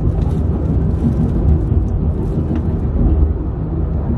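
Penang Hill funicular car running downhill on its rails, a steady low rumble heard from inside the car, with a few faint clicks.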